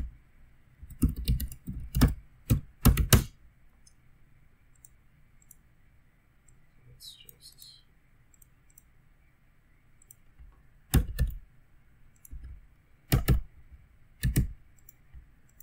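Computer keyboard keystrokes and mouse clicks: a quick run of sharp clicks in the first three seconds, then three separate clicks a second or so apart near the end.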